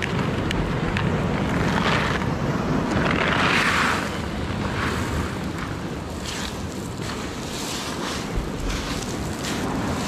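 Surf washing over a rocky shore with wind buffeting the microphone, over the scrape and clatter of gravel and shell grit tipped from a bucket onto a rock and spread by hand.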